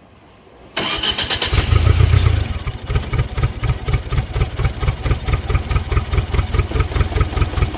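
Tata Zest engine cranked on the starter, catching about a second and a half in, flaring briefly and then settling to an idle with a strong steady pulse. The car is logging a random/multiple misfire with cylinder 3 and 4 misfire codes and a starting issue.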